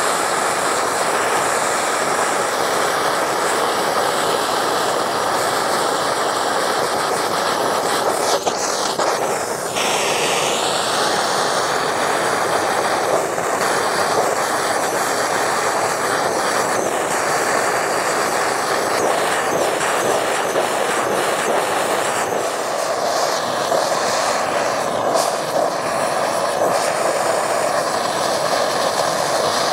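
MAPP gas hand torch burning with a steady rushing roar as its flame heats scrap 14k gold in a clay casting crucible. The roar dips briefly and shifts in pitch about nine seconds in.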